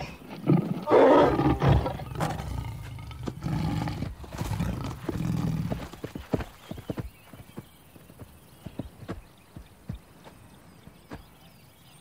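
A lioness growling, loudest about a second in and lasting about six seconds. Then the hoofbeats of a galloping giraffe, a run of fainter, uneven thuds.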